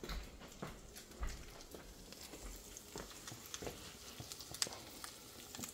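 Pumpkin brioche French toast frying in butter in a cast iron skillet: faint, irregular crackling with scattered small pops.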